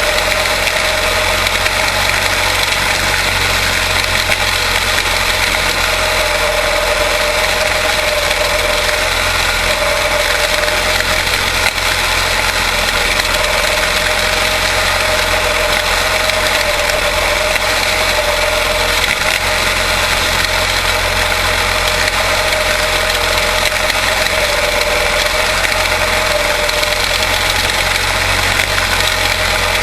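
Quarter midget race cars' Briggs & Stratton Animal single-cylinder engines running steadily at a constant pitch.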